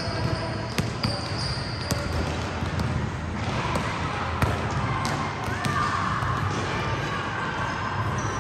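Basketballs bouncing on a gym floor, irregular sharp bounces overlapping one another.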